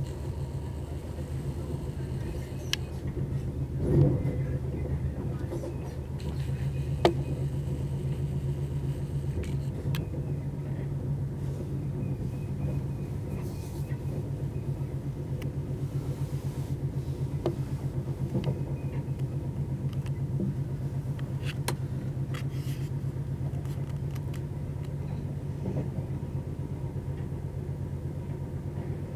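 Night Riviera sleeper train running, heard from inside the carriage as a steady low rumble and hum. Occasional knocks and clicks come from the wheels over points and rail joints, with the loudest thump about four seconds in and a sharp click a few seconds later.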